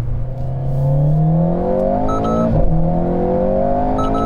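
Alpine A110's 1.8-litre turbocharged four-cylinder engine, heard from inside the cabin, revving hard up through a gear. Near the top a shift-up warning chimes two short beeps and a quick upshift drops the revs about two and a half seconds in. It pulls up through the next gear, and the double beep and an upshift come again near the end.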